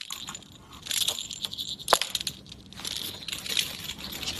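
Small metal jingle bell on a feather wand cat toy jingling in irregular shakes, with one sharper click about two seconds in.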